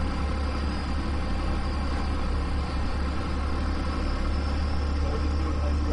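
A towboat's engine running steadily under power as it maneuvers, heard from the open wheelhouse. It is a constant deep drone with a hiss of wind and water over it.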